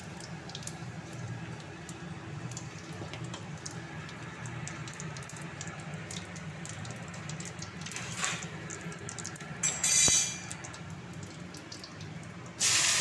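Dried red chillies and cumin seeds sizzling and crackling steadily in hot oil in a steel kadai, with a brief louder burst about ten seconds in. Near the end a sudden loud sizzle starts, as chopped onion and garlic go into the hot oil.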